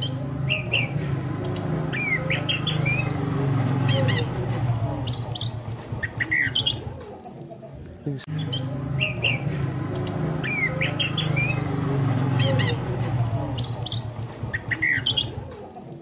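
Chestnut-capped thrush (anis kembang) song played as a looped lure recording: a fast run of high whistles and chirps over a low hum, the same sequence repeating about every eight seconds with a brief gap between loops.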